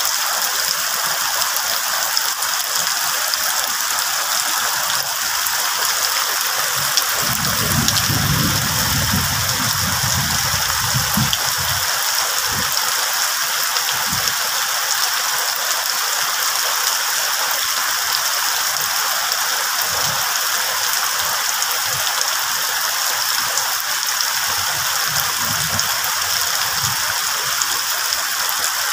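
Heavy tropical rain pouring onto broad tree leaves and banana leaves, a dense steady hiss. Low rumbling comes in for a few seconds about a quarter of the way in and again briefly near the end.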